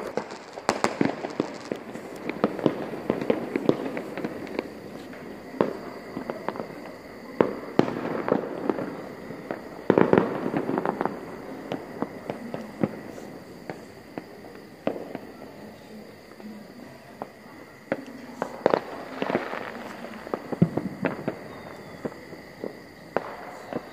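New Year's Eve fireworks going off: an irregular run of sharp cracks and bangs, with thicker clusters about a second in, around ten seconds and near nineteen seconds. A faint steady high tone lies underneath.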